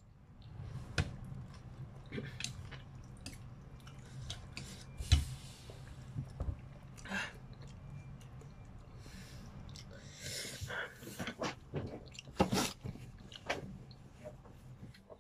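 A person chewing a mouthful of spicy chicken noodles close to the microphone, with scattered sharp mouth clicks and smacks, the loudest about five seconds in and again near the end.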